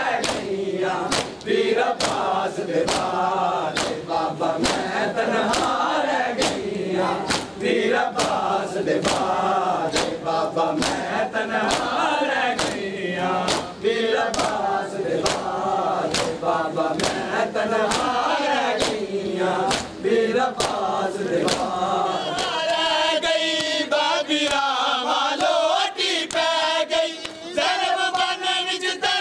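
Crowd of men chanting a Punjabi noha in unison, kept in time by steady, evenly spaced chest-beating slaps (matam). From about two-thirds of the way through, a closer group of male voices sings the lament more loudly over the slaps.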